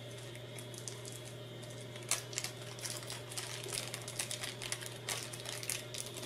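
Small clear plastic parts bag crinkling as it is handled and opened by hand, with a few sharper ticks.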